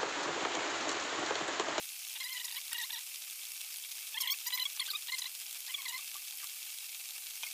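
A steady hiss that cuts off suddenly about two seconds in, followed by short chirping animal calls repeating in clusters, loudest around the middle.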